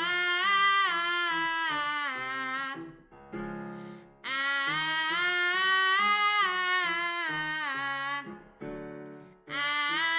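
A woman singing a bright, deliberately ugly-sounding open 'ah' with her tongue out, in phrases that step up and down a scale. Piano plays along, and brief piano notes fill the two short gaps between phrases.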